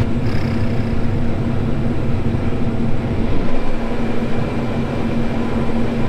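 Combine harvester running steadily while harvesting corn: a continuous low rumble with a steady hum above it.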